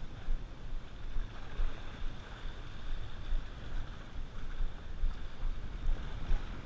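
Wind gusting on the microphone over the sea washing against shoreline rocks, a steady rumbling rush that rises and falls.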